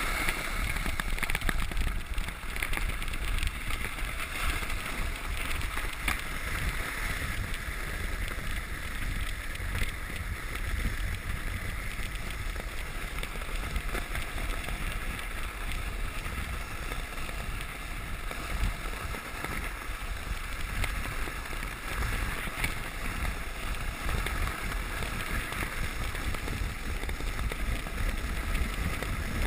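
Sled sliding fast down a packed-snow trail: a steady hiss of the sled running over the snow, with low wind rumble on the microphone.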